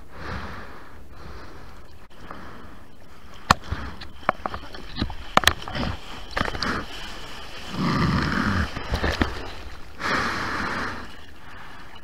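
Seawater splashing and slapping close against a camera riding just above the surface, with a run of sharp knocks from water striking it and two longer rushes of whitewash near the end.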